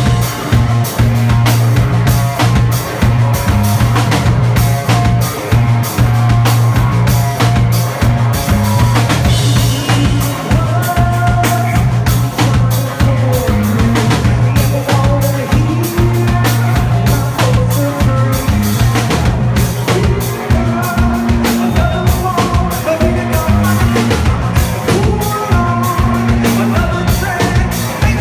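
Live rock band playing loudly: electric guitar over a busy drum kit, with a steady low note holding underneath.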